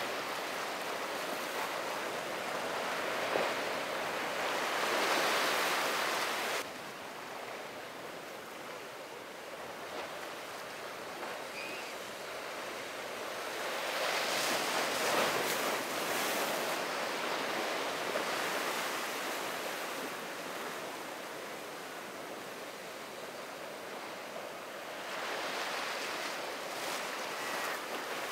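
Ocean waves breaking and washing, swelling louder about every ten seconds, with wind on the microphone.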